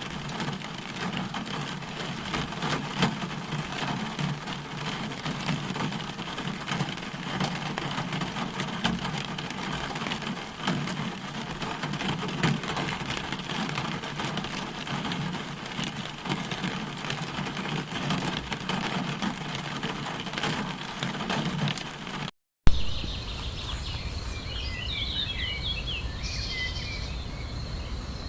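Outdoor nature ambience. A dense, steady hiss with fine crackle runs until a brief dropout and click about 22 seconds in. Then birds chirp over a high, steady insect tone and a low rumble.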